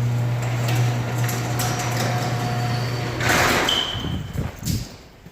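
Electric garage door opener running with a steady low hum, stopping a little over three seconds in, followed by a brief rattle and a few knocks.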